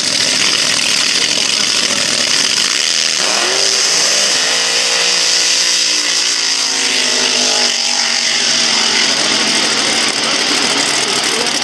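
Loud open-exhaust drag racing engines at high revs as a vintage front-engine dragster does a tyre-smoking burnout beside a hot rod. From about three seconds in, an engine note glides down in pitch for several seconds.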